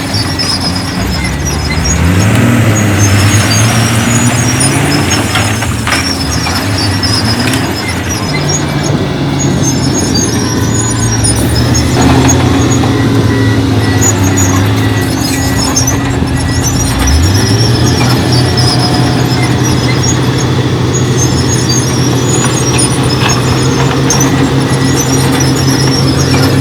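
Diesel engine of heavy earthmoving machinery running and revving, its pitch rising sharply about two seconds in and again about seventeen seconds in, with high-pitched squealing on and off.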